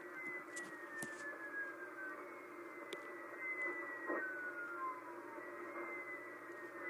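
Shortwave radio reception on 4631 kHz: odd dropping pings, thin tones that each slide down in pitch over a second or two, one after another and sometimes overlapping, over steady band-limited static hiss.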